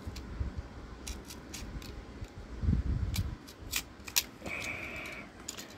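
Snap-off utility knife and a taped cardboard package being handled: a string of sharp clicks, a low knock about three seconds in, and a brief scraping sound near the end.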